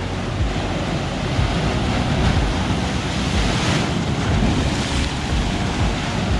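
Ocean surf surging into a narrow channel in the lava-rock ledge, churning and splashing, with the heaviest wash about three and a half seconds in. Wind buffets the microphone.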